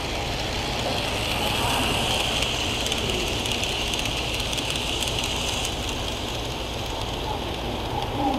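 Model train running along the layout track past the camera, a steady rolling hiss of wheels on rail and motor that swells for a few seconds and then fades.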